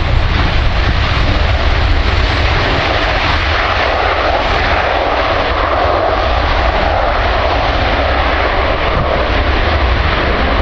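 A Boeing 737-800's CFM56 turbofan engines running loud and steady as the airliner rolls out on the runway after landing.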